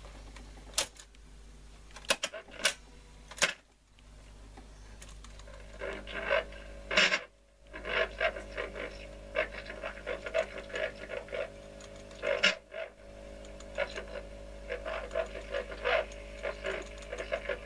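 Walter 101 reel-to-reel tape recorder: several sharp clicks of its control keys, then from about six seconds in the deck playing back, giving an irregular crackling and ticking over a steady hum with no clear voice coming through. The recording has not come back properly, which the repairer puts down to a fault or an unsuitable microphone.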